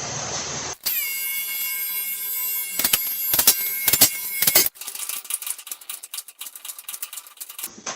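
Brake squeak from a Brembo six-piston caliper: a steady high-pitched, haunting tone with overtones that holds for about four seconds, crossed by a few knocks. It gives way to a run of quick light clicks.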